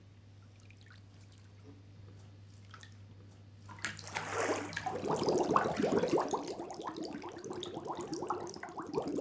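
A faint low hum, then about four seconds in a sudden swish of bath water, followed by steady bubbling and gurgling as a girl lies submerged in a bathtub.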